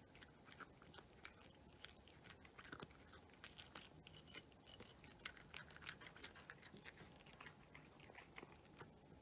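A domestic cat crunching dry kibble, quiet, close chewing with many rapid, irregular crunches that thin out near the end.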